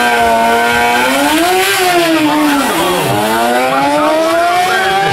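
Two sport motorcycles launching from a drag-strip start line. The engine note is held steady for about a second, then climbs, falls back about two seconds in, and climbs again as the bikes accelerate away.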